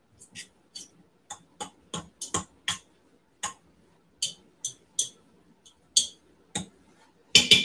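A utensil tapping and clinking against the stainless-steel inner pot of an Instant Pot while stirring and fluffing cooked rice to keep it from clumping. The taps are irregular, about two or three a second, with a quick run of clinks near the end.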